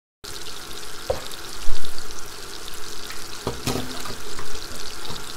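Kitchen noise: a steady sizzling hiss with scattered crackles like frying, broken by a ringing clink about a second in, a low thump half a second later that is the loudest sound, and another knock with a short ring about three and a half seconds in.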